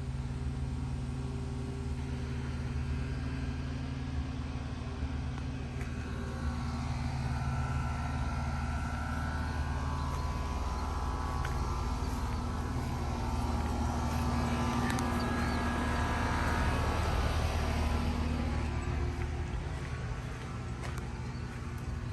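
A vehicle engine runs steadily in a low hum. Over it, another vehicle's noise grows louder, peaks past the middle and fades away, as a car passing by would.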